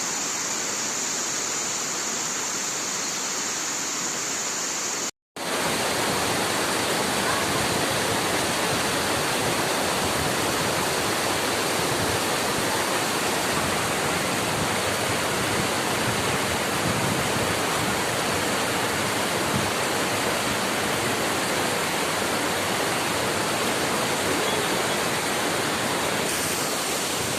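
Steady rush of flowing river water, an even hiss with no pattern in it. It cuts out for a moment about five seconds in and comes back louder and fuller.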